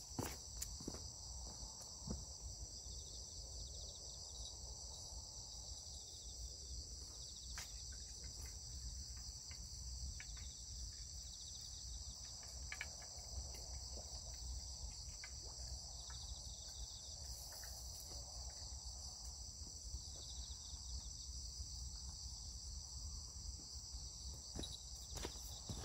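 A steady chorus of crickets, a continuous high chirring, with a few soft clicks and steps scattered through it.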